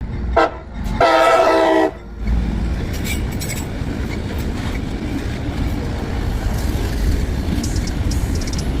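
Locomotive horn: a short toot, then a longer multi-tone blast about a second in, followed by the steady rumble of the passing train.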